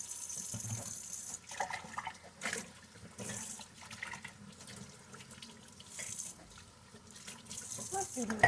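Kitchen tap running into a sink during hand dishwashing, shutting off about a second and a half in, followed by short splashes and light knocks of dishes being handled in the water.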